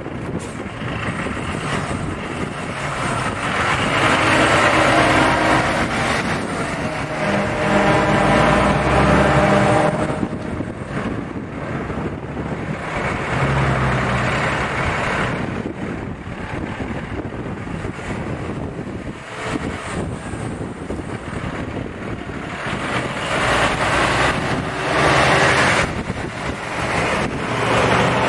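Heavy diesel trucks driving past one after another, their engines swelling and fading as each goes by.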